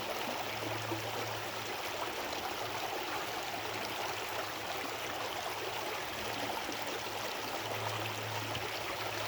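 A small brook running steadily over its bed, a constant rushing and gurgling of flowing water.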